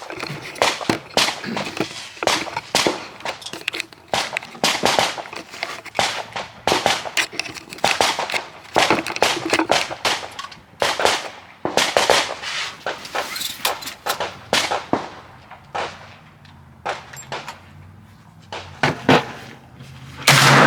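Repeated gunshots, irregular and often several a second, the nearer ones loud and sharp, with a lull near the end before another close cluster.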